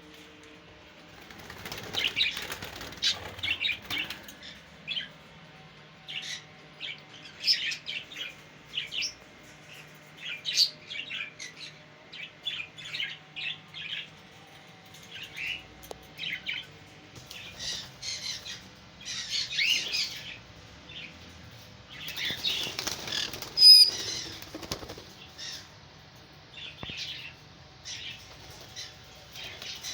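Caged parrots chirping in short high calls, with several bursts of wing flapping and one sharp knock about two-thirds of the way through.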